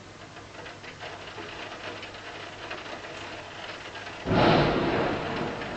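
Rain falling steadily, with many small drops pattering. About four seconds in, a sudden loud low rumble sets in and carries on.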